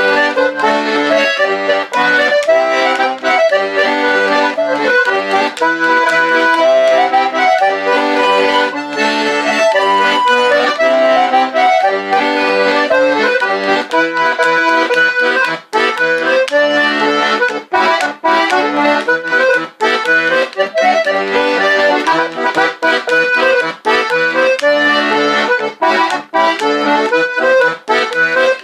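Button accordion playing a folk dance tune at a lively pace, the melody over chords and bass notes, with the phrasing and rhythm varied the way a folk player does rather than played as written.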